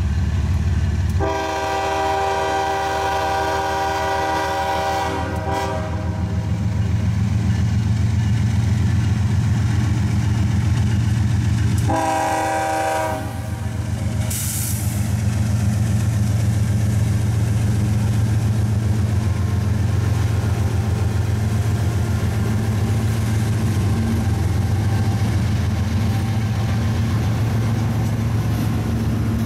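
CSX freight train's diesel locomotive sounding its multi-chime horn for a grade crossing: a long blast about a second in, then a short blast about ten seconds later, over the steady low rumble of the engines. Once the locomotive is past, the rumble carries on as the freight cars roll through the crossing.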